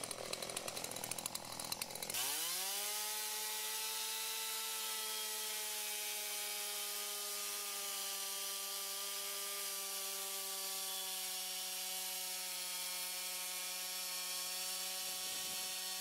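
Small two-stroke gas chainsaw: a choppy rattle for the first two seconds, then a quick rev up to a steady high-pitched run. It holds near full throttle while cutting a flat along a log in a wooden beam-guide mill, the pitch sagging slightly under the load of the cut.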